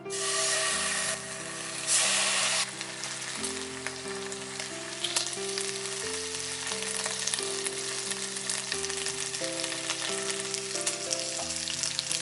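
Food sizzling in a hot frying pan: a loud hiss starts suddenly, surges briefly about two seconds in, then settles into a steady sizzle with crackles. Soft instrumental background music plays underneath.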